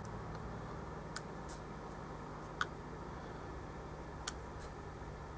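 Push buttons on a Mastech MS7221 volt/mA calibrator clicking as they are pressed: three faint, sharp ticks about a second and a half apart, with a couple of softer ones between, over a low steady hum.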